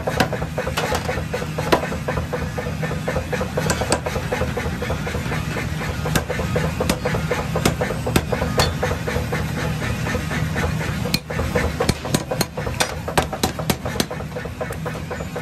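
Power hammer pounding a red-hot block of railroad-track steel with rapid, uneven metal-on-metal blows, part of the time onto a handled punch held on the steel. A steady low hum runs underneath.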